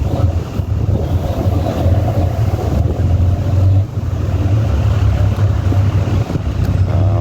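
Low, steady rumble of the recovery crane's engine running during the lift, with wind buffeting the microphone.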